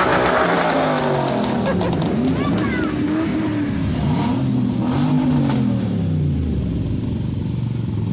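Muscle car engines revving as they drive by, their pitch rising and falling several times in a row.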